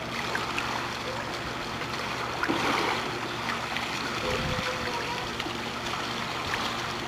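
Steady trickling and lapping of swimming-pool water, with a low hum underneath.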